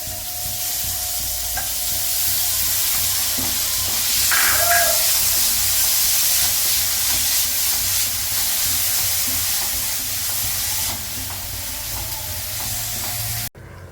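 Grated coconut and whole spices roasting in a pan while being stirred: a steady sizzling hiss that cuts off suddenly near the end.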